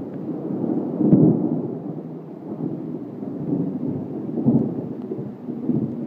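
Benton Falls waterfall rushing: a steady, deep wash of water pouring down a tiered rock face, swelling louder about a second in and again near the end.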